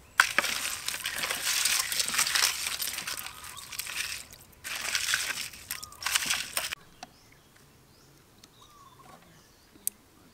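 Raw shrimp being handled and dropped into a stainless-steel colander: wet crackling and rustling in two long stretches, starting with a sharp click. It stops about two-thirds of the way through, leaving faint bird chirps.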